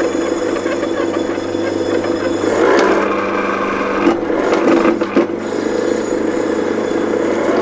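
Leather bell-knife skiving machine running, its motor humming steadily while the rotating bell blade shaves leather from a strap loop to thin it, with a scraping sound.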